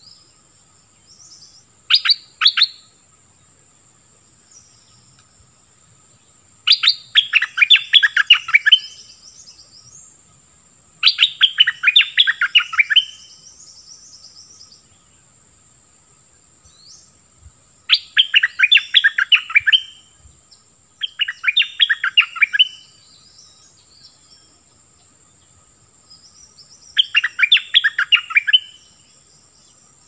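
Caged decoy bulbul singing loud bursts of rapid, bubbling notes, about one and a half to two seconds each, six times with pauses between. Fainter, higher chirps run underneath.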